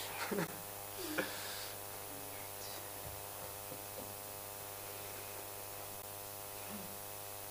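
Steady electrical mains hum and buzz picked up through the microphone line, with a couple of faint, brief voice sounds in the first second or so.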